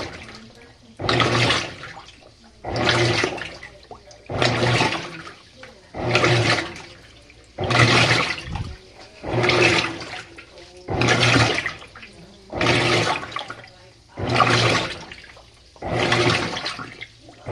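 Washing machine on its delicate cycle, agitating gently: a motor hum and a swish of water repeat about every second and a half.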